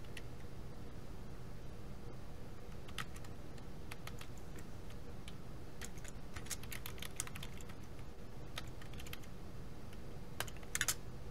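Computer keyboard keystrokes as a line of text is typed, in irregular clusters of clicks with short pauses between words, over a faint steady low hum.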